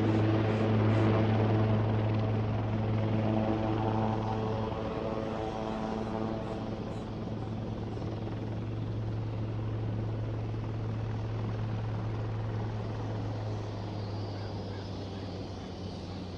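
Sikorsky S-76A twin-turbine helicopter heard from medium distance: a steady rotor and engine drone, deep and even in pitch, slowly growing quieter.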